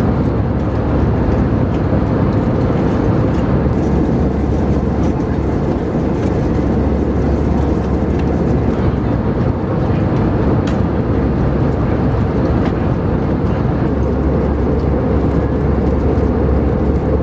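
Steady in-flight cabin noise of an Airbus A320 airliner: engine and airflow noise, with a few faint clicks.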